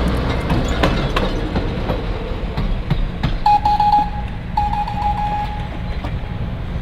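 Diesel-hauled passenger train running by with a steady low engine rumble and wheel clicks over the rail joints. About halfway through, a single high steady tone sounds twice, each time for about a second.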